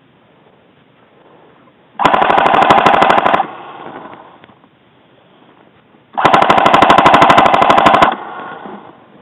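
Airsoft gun firing two loud full-auto bursts, a rapid even rattle of shots: the first about two seconds in and lasting over a second, the second about six seconds in and lasting nearly two seconds.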